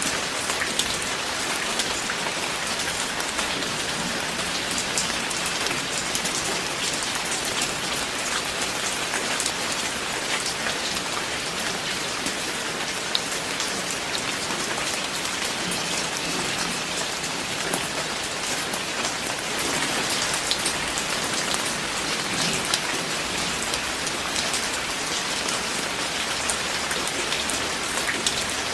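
Steady heavy rain falling and pattering on surfaces, with many small drop ticks throughout and no thunder heard.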